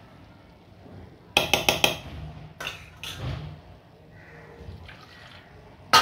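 A quick run of sharp metal clicks on the steel jar of a mixer grinder, then water poured from a small cup into the jar of coconut, onion and chilli masala. A loud metal clack near the end.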